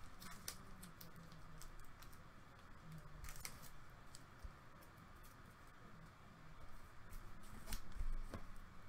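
Faint crinkling and clicking of clear plastic card sleeves as sleeved trading cards are handled and set down on a table, in scattered short bits, a little louder near the end.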